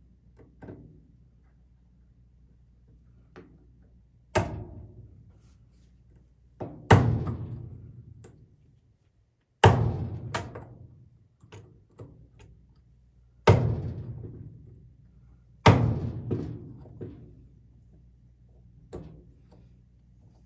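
A chisel being struck to cut a recess for a nut into a hole-saw wheel: five hard blows a few seconds apart, each ringing out for a second or so, with lighter taps between them.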